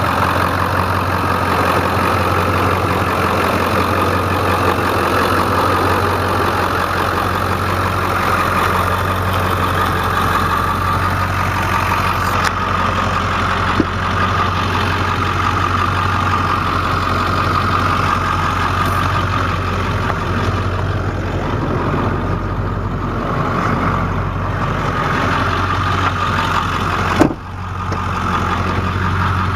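Ford 7.3 L V8 turbo-diesel engine running steadily with a constant low hum. A single sharp knock comes near the end, followed by a brief dip in the sound.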